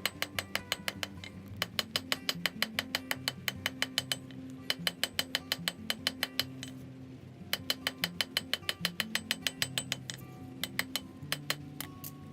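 Hammer blows on hot steel over an anvil, about six ringing strikes a second in runs of a few seconds with brief pauses, as the bar's stem is rounded from an octagon and its edges planished smooth.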